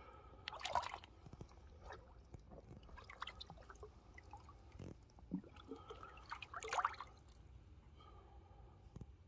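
Lake water splashing and dripping around a floating carp sling as a large common carp is released back into the lake. There are two louder splashes, about a second in and again near seven seconds, with small drips in between.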